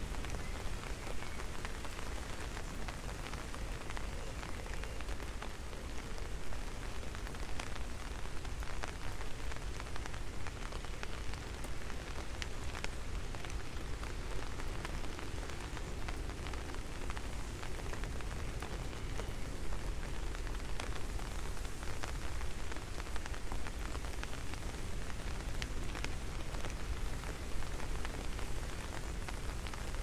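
Steady rain falling on leaves and a wet road, with scattered sharp drop hits close by and a low rumble underneath.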